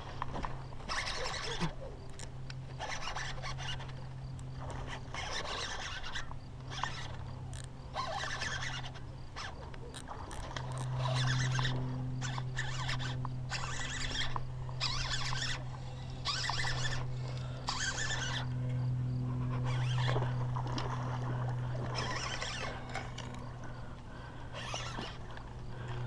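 Baitcasting reel cranked in short spurts, a zipper-like whirring every second or two as a topwater lure is worked back, over a steady low hum.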